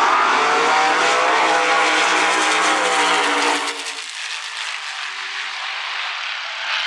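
Two Corvette-bodied Top Sportsman drag cars launching together at full throttle and accelerating down the strip, the engine note rising in pitch. About three and a half seconds in the sound drops to a quieter, more distant run.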